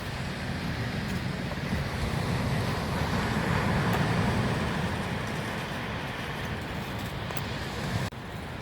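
Road traffic noise from a vehicle passing by, swelling to its loudest about halfway through and fading again, then cut off abruptly near the end.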